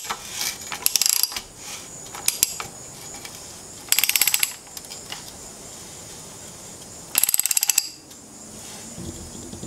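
Ratchet wrench clicking in several short bursts of rapid clicks as it turns a splined bottom bracket tool, threading a cartridge bottom bracket into a steel bike frame's bottom bracket shell.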